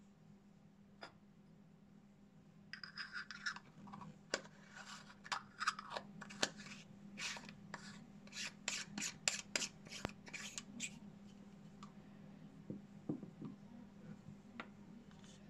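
Nikon Micro-Nikkor lens being turned in the hands: a run of short scraping, rasping strokes mixed with sharp clicks from about three to eleven seconds in, as the knurled focus ring and the aperture ring are worked, then a few softer clicks near the end.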